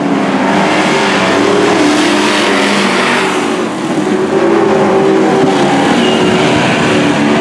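A pack of dirt-track race trucks (small pickups) running hard around a dirt oval, their engines blending into one loud, steady drone that dips briefly about three and a half seconds in.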